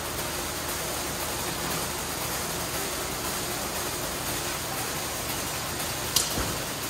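ECO Motion car-wash foam brushes spinning on a gantry with no car in the bay, making a steady rushing noise. One sharp click sounds about six seconds in.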